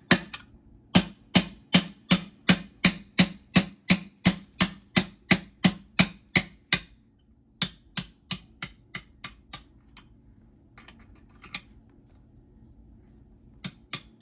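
Hammer blows on metal, evenly spaced at about three a second for several seconds, then lighter, quicker taps, then a few single taps near the end: a part being driven out of an NV3500 manual transmission during teardown.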